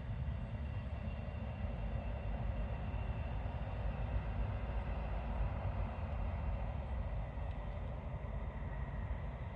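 A distant DB Class 628 diesel multiple unit running along the line: a steady drone with a low rumble that does not change.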